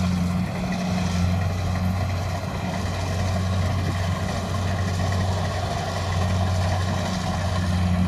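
Rice combine harvester running steadily as it cuts and threshes standing rice, a constant low engine hum with threshing noise spread above it.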